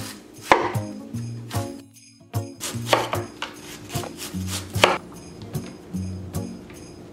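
Large kitchen knife slicing white cabbage into thin shreds on a wooden cutting board: several crisp cuts, roughly one a second, ending about five seconds in. Light background music runs underneath.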